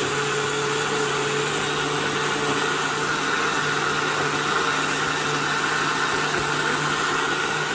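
Countertop blender running at a steady speed, liquefying soaked rice, a cinnamon stick and water.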